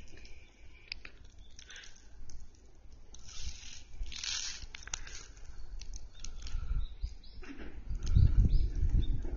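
Outdoor ambience with scattered rustling and crackling, a few short bird chirps near the end, and a low rumble in the last two seconds.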